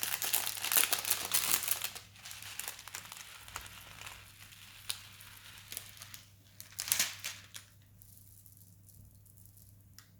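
Crunchy slime crackling as it is kneaded and pulled apart by hand: dense crackling at first, thinning to scattered small clicks, with one more short burst of crackling about seven seconds in before it goes quiet.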